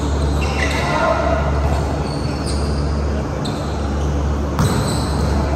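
Volleyball being hit and passed on a hardwood gym court: sneakers squeaking on the floor, with a sharp smack of the ball about four and a half seconds in. Players' voices and a steady low hum underneath.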